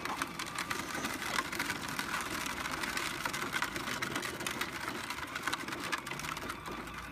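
Battery-powered children's ride-on toy Jeep driving along, a small electric motor whirring steadily under a dense crackle of hard plastic wheels rolling over dirt and gravel.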